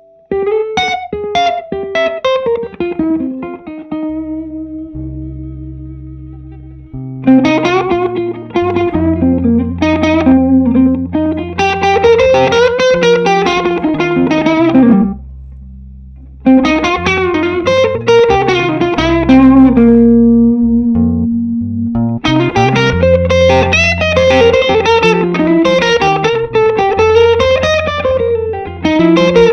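Electric guitar playing single-note lead phrases over steady bass notes, with a short break in the playing about fifteen seconds in.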